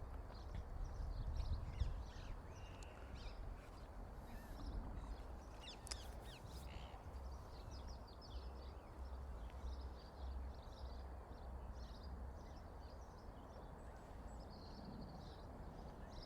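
Faint outdoor ambience: birds chirping and calling in short scattered notes, over an uneven low rumble.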